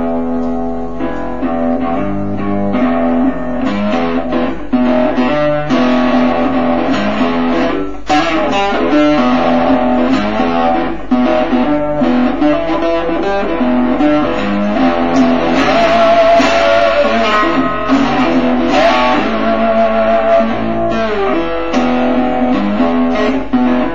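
Guitar music: plucked and strummed guitar notes in a continuous piece.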